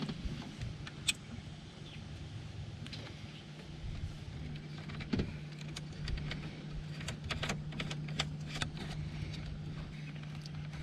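Light clicks and small metal taps of hands and a spanner at a car battery's positive terminal, fitting a wiring harness's lead onto it, with a steady low hum throughout. The clicks grow more frequent about halfway through.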